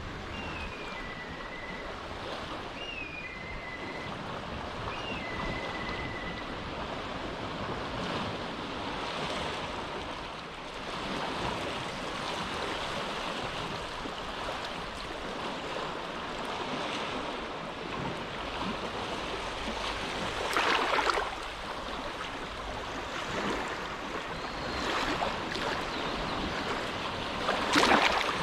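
Small, gentle waves lapping steadily on the shore of a calm inlet, with two slightly louder splashes, one about two-thirds of the way through and one near the end.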